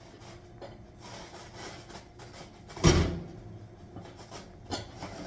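Handling noises: light clicks and a faint rustle, one loud knock about three seconds in, and a couple of sharper clicks near the end, like a cupboard, drawer or pot being handled.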